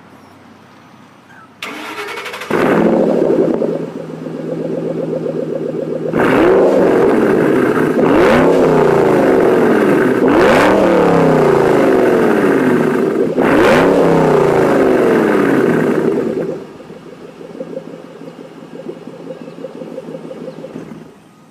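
2012 Shelby GT500's supercharged 5.4-litre V8 heard through Borla ATAK axle-back mufflers: it starts about two seconds in with a loud flare, settles to idle, then is revved about four times. Near the end it drops back to a steady idle.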